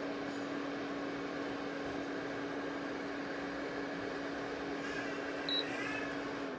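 Ceramic space heater's fan running with a steady whir and a low hum, with one brief faint chirp about five and a half seconds in.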